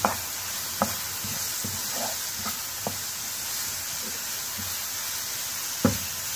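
Chopped leeks and mushrooms sizzling in oil in a frying pan as they are stirred with a spatula. The spatula knocks against the pan a few times, loudest near the end.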